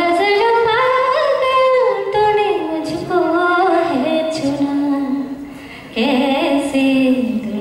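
A woman singing into a microphone in long, sliding melodic phrases, with a short break about five seconds in before she comes back in.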